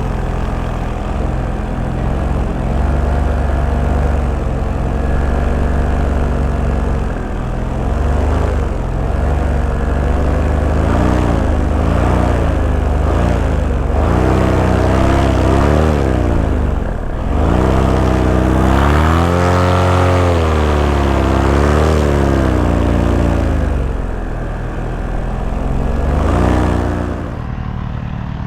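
Paramotor engine and propeller running in flight, its pitch rising and falling several times as the revs change, over a steady low rumble.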